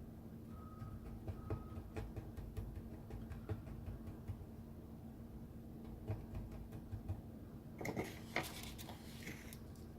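Gerui GR-12-008 electric cigarette-making machine running faintly with a steady hum and scattered mechanical clicks, two short high beeps near the start, and a brief burst of rattling clicks about eight seconds in.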